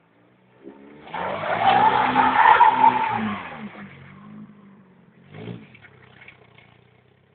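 Opel Vectra 1.8's four-cylinder petrol engine revving hard as the car drifts past on snow, with the hiss of its spinning tyres, loudest about two to three seconds in and then fading. A short rev follows near the end.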